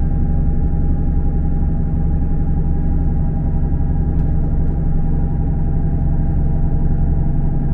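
Diesel multiple unit heard from inside the passenger saloon, running at a steady speed. There is a low, even rumble from the engine and wheels, with a constant whine over it that stays at one pitch.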